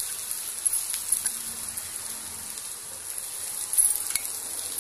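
Hot oil sizzling steadily in a steel kadai as boiled spiny gourds fry with onions, with a couple of faint clicks.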